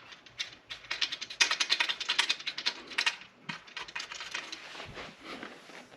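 Quick run of light clicks from a ratchet wrench working fasteners loose, dense for about two seconds, then slower and scattered.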